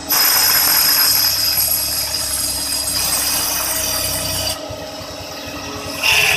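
CNC drilling, milling and tapping machine at work: a loud hissing whir with high whining tones starts suddenly, then eases off after about four and a half seconds to a lower steady machine noise, with a brief loud burst near the end.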